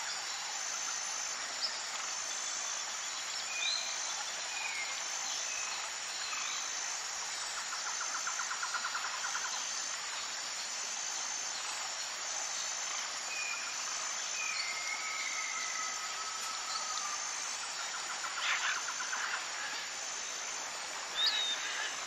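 Rainforest ambience: a steady chorus of insects with a high-pitched call pulsing about once a second, and scattered bird chirps and whistles over it, one louder chirp near the end.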